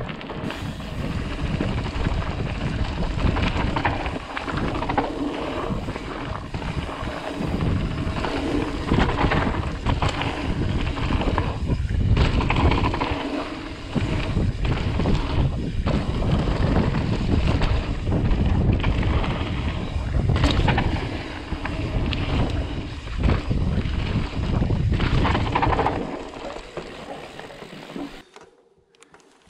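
Mountain bike descending a dirt downhill trail at speed: wind buffeting the head-mounted GoPro's microphone, tyres rumbling on the dirt and the bike rattling and knocking over bumps. The noise fades away about three seconds before the end.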